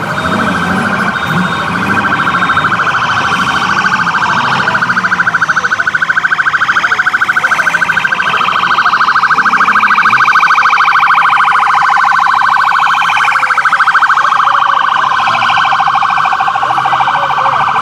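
Sheriff's patrol car siren sounding continuously in a fast, rapidly pulsing warble.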